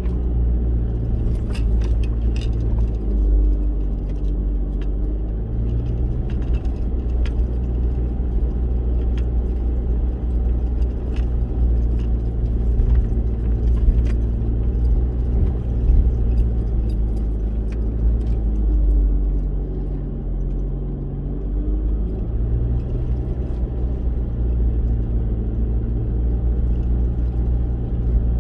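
4x4 vehicle's engine running steadily at low revs while driving, its pitch dipping and climbing back twice as the revs change. Scattered light rattles and jangles sound over the engine.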